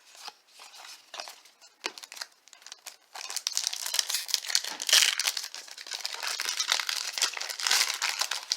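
A baseball card pack wrapper being torn open and crumpled. A few light handling ticks come first, then from about three seconds in there is dense, continuous crinkling and tearing that stops near the end.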